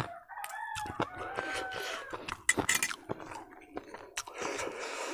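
A rooster crowing in the background for about two seconds near the start, over close-up chewing and the clicks of a fork against a steel plate.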